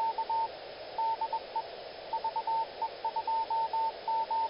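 Morse code: a single steady beep tone keyed in short dots and longer dashes, in groups with short pauses between them, over a steady hiss.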